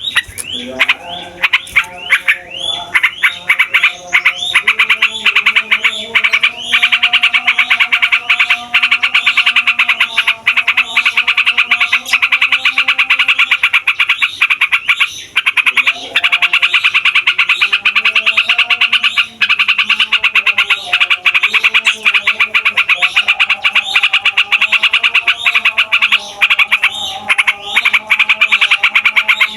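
Yellow-vented bulbul singing a long, rapid, rolling run of chattering notes that carries on almost without a break, pausing only briefly a couple of times.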